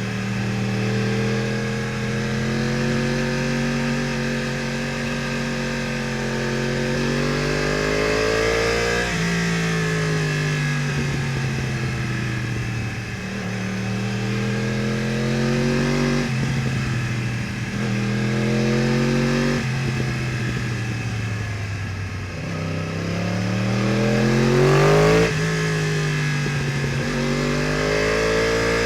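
Yamaha R1 crossplane inline-four engine with an Akrapovič exhaust, heard from the rider's seat, pulling up through the revs with a sudden drop in pitch at each upshift, four times, and easing off with the revs falling between pulls. It is loudest in the hard pull just before the last shift.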